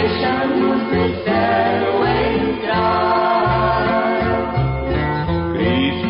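A gospel hymn: voices singing over guitar accompaniment with a pulsing bass.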